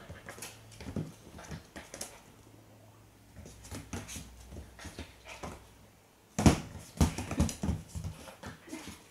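A puppy at play with a tennis ball on a hard floor: scattered scuffles, taps and clicks, with a burst of louder knocks and thumps about six and a half seconds in.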